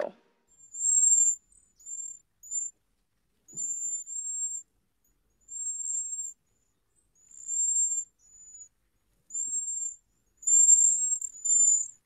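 Cedar waxwing calls: thin, high, wispy whistles, repeated about ten times at irregular intervals.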